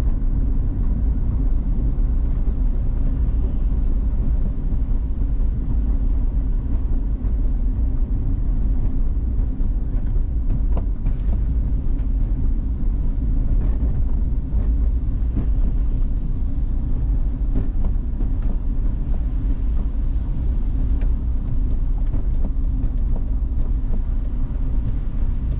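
A car driving, with a steady low rumble of engine and road noise and a few faint ticks.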